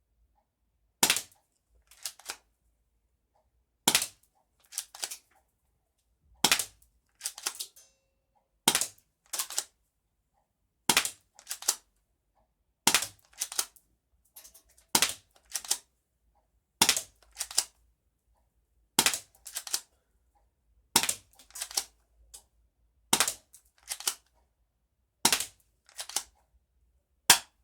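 Spring-powered K-6 BB pistol firing about a dozen sharp shots, roughly one every two seconds. Each shot is followed about a second later by a softer cluster of clicks as the gun is pulled back and cocked for the next shot.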